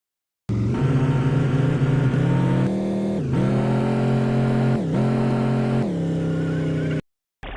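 Car engine sound effect: the engine runs at a steady pitch, dips sharply in pitch twice near the middle and comes straight back, then cuts off suddenly.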